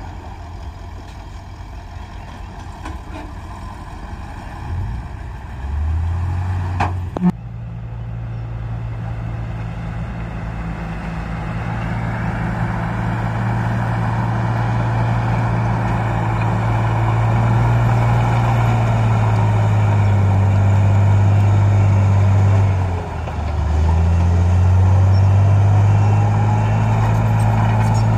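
Heavy diesel engine of earthmoving machinery working under load. It revs up about six seconds in, with a sharp click just after, then runs hard and steady, dips briefly near the end and picks up again.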